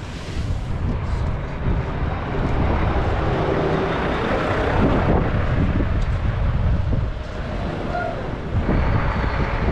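Wind buffeting the microphone: a steady low rumble with rushing noise.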